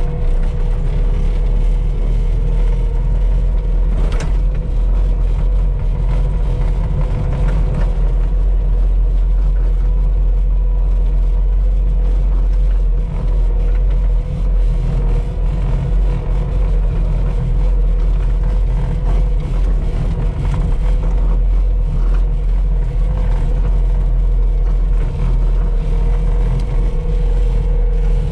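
A vehicle's engine running steadily while driving along a gravel driveway, heard from on board: a constant low rumble with a steady whine over it.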